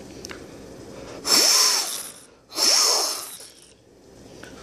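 Two strong breaths blown into a small water flow sensor, each a rushing hiss about a second long, to make the sensor register flow. A faint tone rises and falls within each blow.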